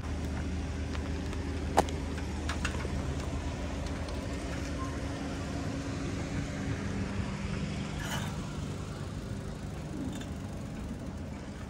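Motor vehicle engine running close by in street traffic: a steady low hum that changes pitch about seven seconds in, with one sharp click about two seconds in.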